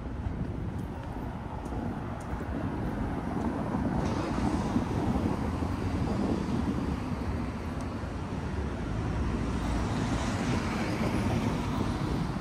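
City street traffic: vehicles passing by on the road, the noise swelling about four seconds in and again near the end.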